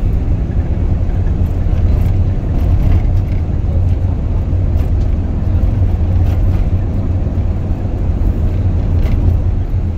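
Steady low road and engine rumble heard from inside the cabin of a Nissan NV350 van while it drives along a paved road.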